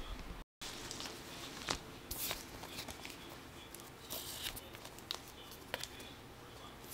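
Faint rustling and light, scattered clicks of a belt being handled and wrapped around the waist of a pair of jeans, with a brief gap of dead silence about half a second in.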